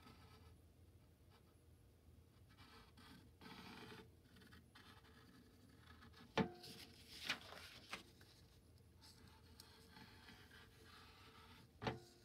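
Faint scratching of a marker pen drawing shapes on paper, in short strokes. A few light knocks come about halfway through, and a louder one comes near the end.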